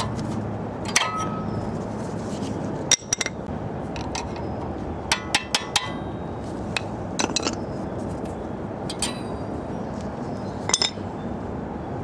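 Worn front brake pads of a 1997 Nissan Maxima being pulled out of the caliper bracket: scattered sharp metallic clinks as the steel backing plates knock against the bracket and its clips, including a quick run of three about five seconds in.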